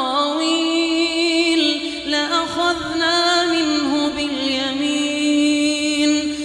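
Quran recitation: a single voice chanting without accompaniment, holding long notes with wavering melodic ornaments.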